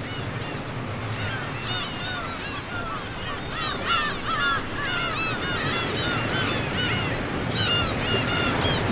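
Many birds calling over and over, short arched cries overlapping one another, over the steady noise of surf breaking on the beach.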